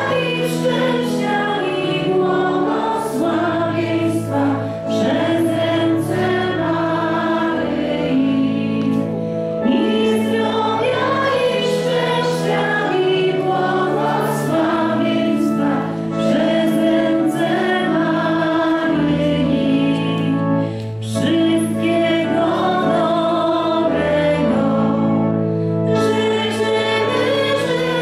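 A choir singing a hymn, with long held low notes under the voices and short pauses between phrases.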